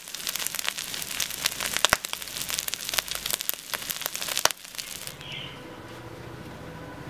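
Minced beef sizzling and crackling as it fries on a large iron tawa, dense pops over a steady hiss. About four and a half seconds in the sizzle cuts off, leaving only a faint steady hum.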